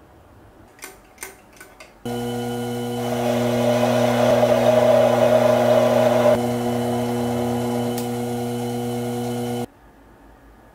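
A few small metal clicks, then a mini metal lathe runs with a steady hum; for about three seconds in the middle the cutting tool turning the metal part adds a louder hiss, and the sound cuts off suddenly near the end.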